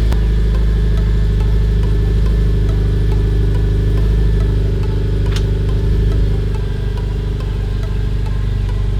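Shelby GT350's 5.2-litre flat-plane-crank V8 idling steadily on its exhaust that still has the resonator in place, just after start-up. A single sharp click sounds about five seconds in, and the idle settles slightly lower soon after.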